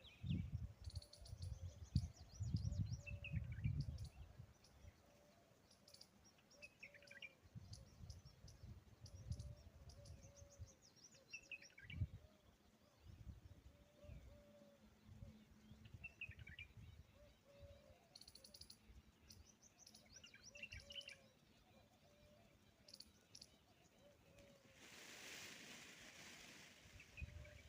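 Faint outdoor birdsong: several birds give short chirps and high twittering, over a soft call that repeats evenly. Low rumbles on the microphone, strongest in the first few seconds, and a brief burst of hiss near the end.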